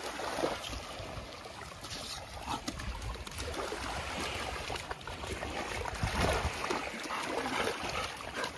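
Small waves washing in over a sandy shore, with a golden retriever puppy splashing its paws through the ankle-deep shallows.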